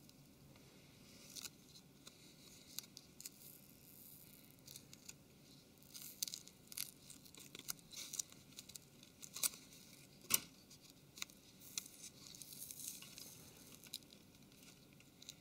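Faint crackling and tearing of adhesive as a cracked touchscreen digitizer is pried and peeled away from a phone's frame with a plastic pry tool, with scattered small clicks and crackles.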